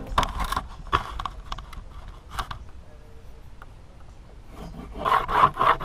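Woodworking handling noises: scattered light knocks and taps on wood and tools, then a quick run of rough scraping strokes about five seconds in.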